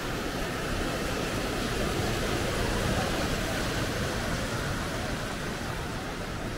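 Steady city street noise, an even hiss of passing traffic, swelling a little about three seconds in.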